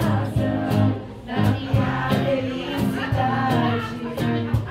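Two women singing together into microphones, accompanied by an acoustic guitar.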